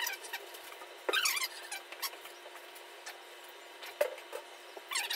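Foam packing peanuts rustling and squeaking as they are scooped out of a cardboard box by hand. There is a squeaky burst about a second in and another near the end, and a sharp tap about four seconds in.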